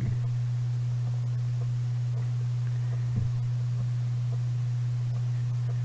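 Steady low electrical hum in the recording, one unchanging tone with no speech over it, and a faint brief tick about three seconds in.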